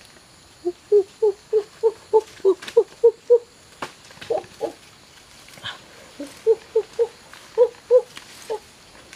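An animal calling in runs of short, evenly repeated pitched notes, about three to four a second, with a pause in the middle. A couple of sharp clicks fall between the runs.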